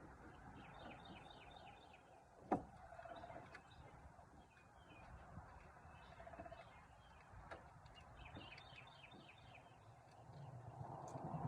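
Very quiet background with faint bird chirps in quick repeated series, and one sharp click about two and a half seconds in, with a softer one later.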